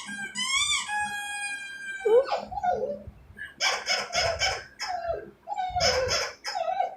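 A pet dog whining and howling at a squeaky toy on TV, in several drawn-out bouts. High, arching squeaks from the TV's squeaky toy sound in the first second.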